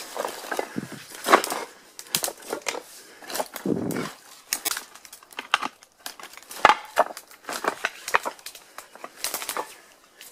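Footsteps pushing through dry undergrowth: dead leaves and dry grass crackling and twigs snapping underfoot in irregular steps.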